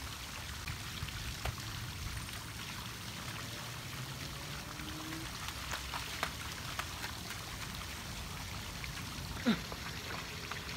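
Steady rush of water from a small waterfall at a lake, with scattered small ticks and drips. Near the end comes a brief, quickly falling sliding sound.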